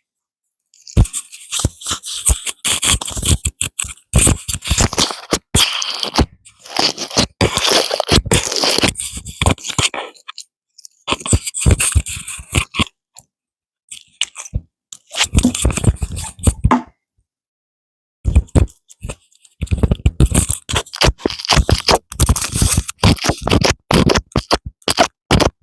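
Slime with foam beads in it being squeezed and worked by hand: irregular crunching and crackling in bursts, broken by a few short pauses.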